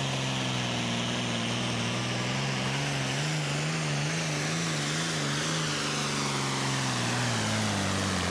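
A John Deere Super Farm pulling tractor's turbocharged diesel engine running hard under load as it drags the pulling sled. Its pitch wavers quickly up and down for a few seconds in the middle, then sags lower near the end, with a high whine falling slowly above the engine note.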